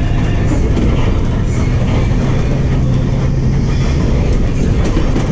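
Higer KLG6770G bus engine running under way, heard inside the passenger cabin together with road rumble. A steady low engine drone holds for the first three and a half seconds or so, then eases.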